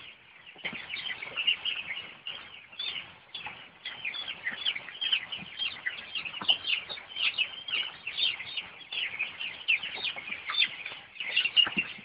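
A large flock of young chicks peeping without pause, many short high chirps overlapping each other.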